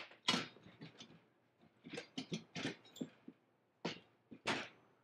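A string of about a dozen short, irregular light taps and clicks, as a heat-swollen part that is stuck fast is worked at to pop it out.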